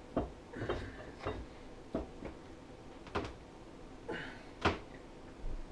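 Scattered metallic clicks and knocks as a long wrench bar works the retaining nut on a snowmobile primary drive clutch, with two brief squeaky scrapes, one near the start and one about four seconds in.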